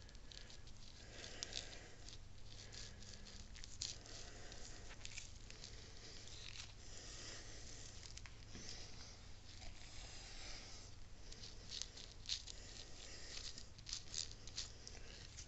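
Faint rustling and squishing of nitrile-gloved hands working fresh grease onto a worm gear shaft, with scattered small scrapes and clicks. A low steady hum runs underneath.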